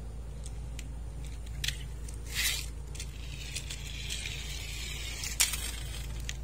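Small plastic toy crane truck rolled along a tiled step, its hard plastic wheels hissing and rasping for about two seconds, then one sharp clack as it tips off the edge and lands on its side on concrete.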